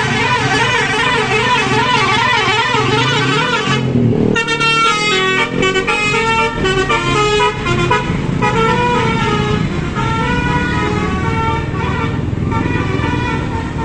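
Bus 'telolet' musical air horn sounding. For about the first four seconds it plays a warbling, wavering tone, then a tune of quick stepped notes that changes pitch several times a second.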